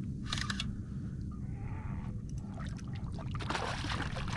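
A hooked redfish thrashing and splashing at the water's surface, with a few short sharp clicks.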